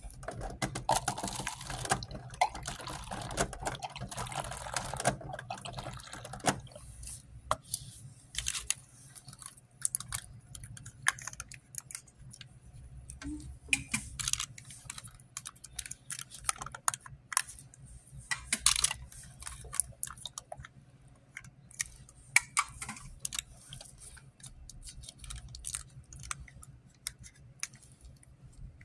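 Close handling noise as coffee is fixed in a paper cup: a rustle of clothing for about the first six seconds, then a run of irregular light clicks and taps, with a small plastic creamer cup being emptied into the coffee near the end.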